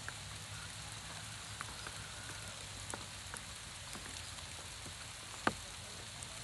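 Light rain falling on water and grass: a steady patter with scattered drop ticks, and one sharper tick about five and a half seconds in.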